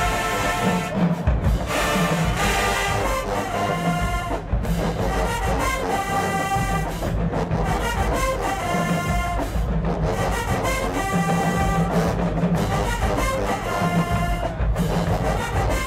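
HBCU marching band playing: the brass section sounds full chords in phrases with brief breaks between them, over bass drums and percussion.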